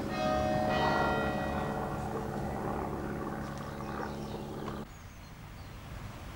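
Church bells ringing: several bells struck in turn, their tones hanging and overlapping. They cut off abruptly about five seconds in, leaving a faint outdoor background.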